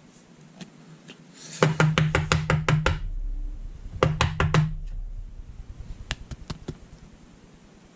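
Quick runs of light knocks from a rigid plastic toploader holding a baseball card being tapped against the tabletop, the usual way of settling the card down into the holder. First about eight fast taps in a row, then four more, then three fainter ones.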